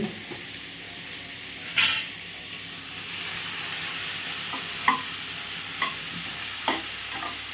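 A poriyal stir-fry sizzling in a hot pan, the sizzle growing a little louder about three seconds in. A utensil knocks and scrapes against the pan four times as it is stirred.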